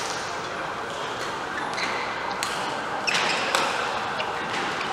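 Badminton racket strings hitting a shuttlecock, a few sharp hits during a rally, over the steady background noise of a large sports hall with several courts in play.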